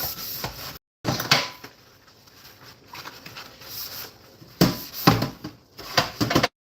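Scattered knocks and clunks of household items being handled: one about a second in, then a cluster of several toward the end. The audio cuts out completely twice for a moment.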